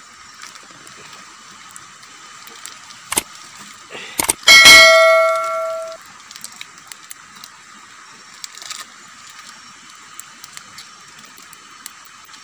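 Metal cooking pot knocked, with a light knock about three seconds in, then a loud clang about four and a half seconds in that rings on for over a second.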